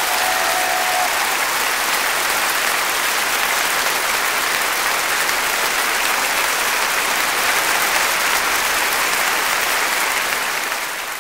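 A large crowd applauding steadily, a dense even clapping that fades down near the end.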